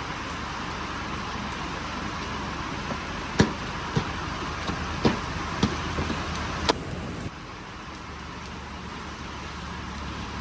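Steady rush of heavy rain, with five or six sharp knocks in the middle. The rain noise drops suddenly about seven seconds in.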